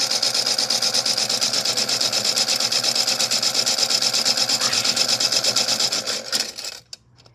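Toy washing machine running a wash with toy cars inside: its small electric motor turns the drum with a fast, even rattle that dies away and stops near the end.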